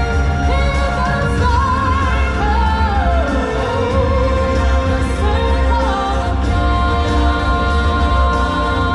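Music with a singing voice holding long, wavering notes over a steady bass.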